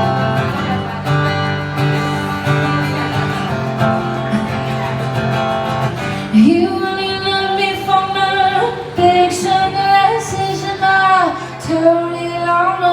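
Music: a guitar plays alone, and about six seconds in a woman's voice enters singing long held notes over it.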